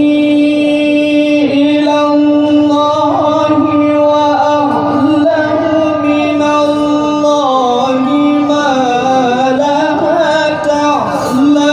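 Male Quran reciter's voice in melodic tilawah, sustaining a long ornamented note with trills and slides; the pitch settles a little lower for a few seconds in the second half, then glides back up near the end.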